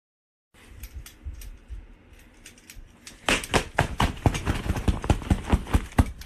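Near silence for half a second, then faint scattered knocks, then about three seconds in a fast, even run of loud, sharp clicks or slaps, about four a second.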